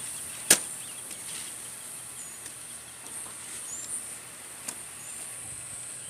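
A single sharp click about half a second in, then a few faint ticks and brief high chirps over a steady high-pitched hiss.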